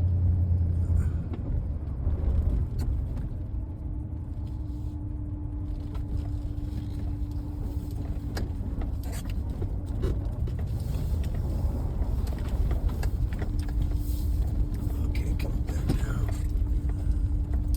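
Pickup truck driving in four-wheel drive, its engine and tyre noise a continuous low rumble. A steady hum comes in about five seconds in, drops out near the middle and returns.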